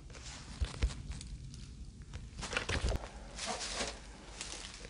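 Footsteps through dry weeds and grass: several uneven steps with rustling of dry stalks.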